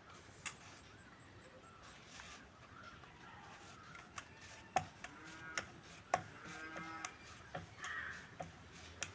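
Dough being rolled out thin with a rolling pin on a wooden board, with scattered light knocks as the pin meets the board. A few faint pitched sounds in the background about five to eight seconds in.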